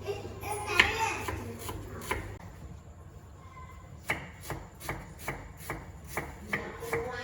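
Kitchen knife chopping on a cutting board: some handling and rubbing noises at first, then from about four seconds in a steady run of strokes, between two and three a second.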